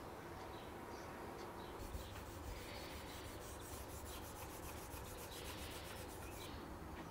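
Faint rubbing of hands working over a wooden saw handle, with a run of rapid light ticks through the middle.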